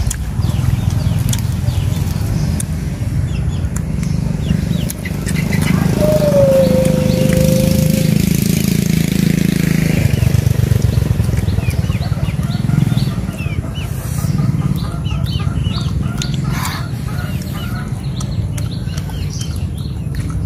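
A low, steady engine drone, loudest between about six and ten seconds in, with small birds chirping in the second half.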